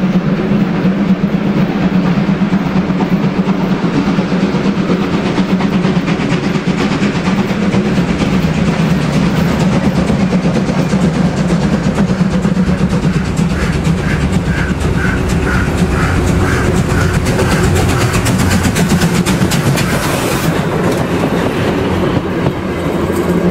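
Two-cylinder steam locomotive of DR class 50.35 working hard under steam with a rapid steady exhaust as it comes out of a tunnel hauling a passenger train. Near the end its coaches roll past with a clickety-clack on the rails.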